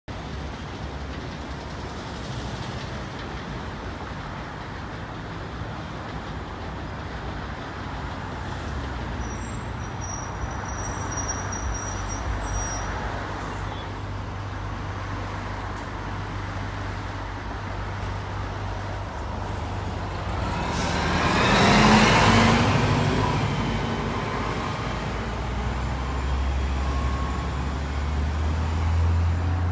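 Street traffic with a Nova Bus RTS diesel transit bus driving past. Its engine and road noise build, peak about two-thirds of the way through, then fade as it pulls away. Other vehicles idle and run in the background.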